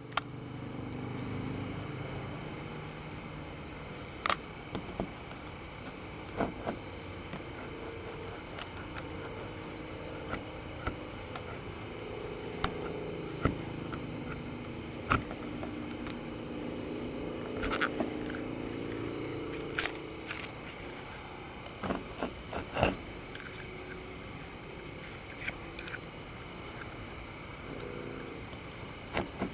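Crickets trilling steadily at night, with scattered sharp clicks as a small blade tool works at a car window's decal.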